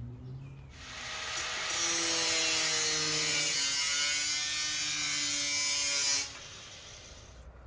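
Angle grinder with an abrasive cut-off disc cutting into a galvanized steel bucket: a loud, high grinding hiss over the motor's steady whine. It starts about a second in, drops off sharply about six seconds in and fades out over the next second.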